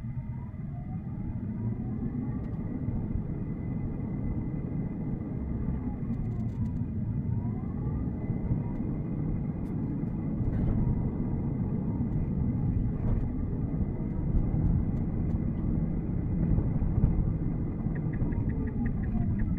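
Road and tyre rumble inside a Tesla Cybertruck's cabin while it drives, played back at four times speed, with faint whines that rise and fall. A quick run of even ticks comes in near the end.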